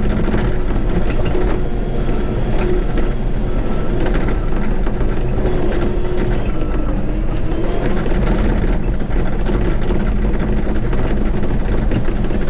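Shantui crawler bulldozer running steadily, its diesel engine humming with a clanking clatter from the steel tracks as it pushes dirt.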